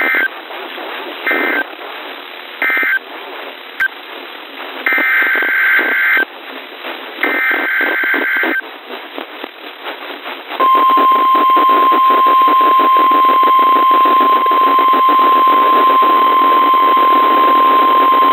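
NOAA Weather Radio broadcast over hiss and static: three short screechy SAME data bursts, the end-of-message code, then two longer SAME header data bursts for the next alert. From about ten seconds in comes the steady 1050 Hz weather radio warning alarm tone.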